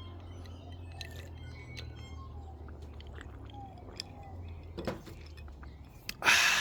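A person drinking a glass of gin after a toast: faint small clicks and glass clinks over a low steady hum, then a sharp breathy exhale near the end.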